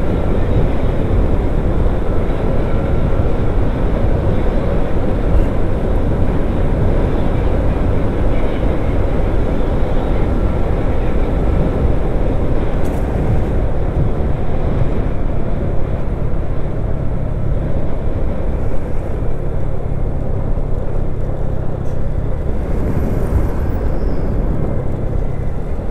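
Steady rumble of a vehicle driving along a highway: engine and road noise in heavy traffic.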